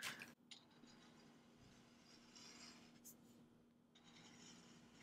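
Faint strokes of an Ohuhu marker nib on paper as a box is coloured in, in short soft scratchy patches over a faint steady hum; otherwise near silence.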